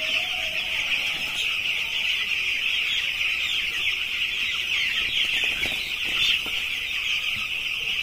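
A large flock of ten-day-old broiler chicks peeping, a dense high chorus of overlapping cheeps that never lets up.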